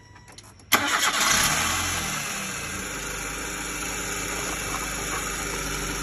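Nissan Sunny's four-cylinder petrol engine starting suddenly about a second in, running louder for the first second or two, then settling into a steady idle.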